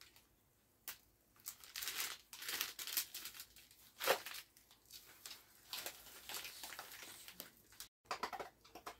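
Plastic candy packaging crinkling and rustling as it is handled and set aside: a run of short, irregular crackles starting about a second in, one louder one near the middle.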